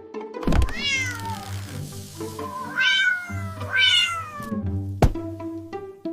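A cat meows three times, each meow falling in pitch, over light background music. A sharp click comes about five seconds in.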